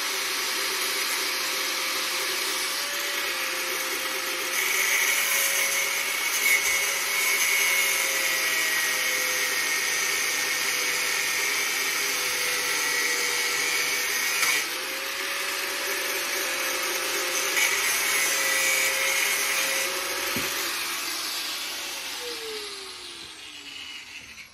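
Handheld electric power tool running under load, its motor pitch wavering as the load changes, then winding down with a falling pitch over the last few seconds as it is switched off.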